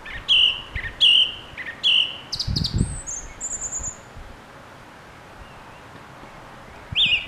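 Song thrush singing: one short phrase repeated three times, then a few different phrases including a high trill, and after a pause one more phrase near the end.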